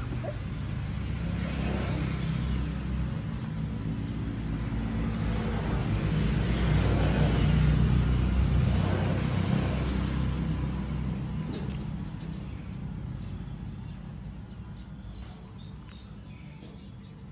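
Low engine rumble of a vehicle passing, building to its loudest about halfway through and then fading away. Faint bird chirps come through near the end.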